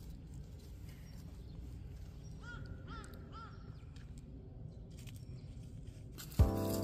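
A crow cawing three times in quick succession over a steady low outdoor background noise. Music starts near the end.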